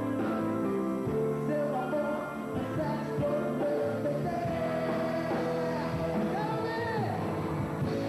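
Live pop-rock band music, with a long held melody note that wavers in pitch through the middle.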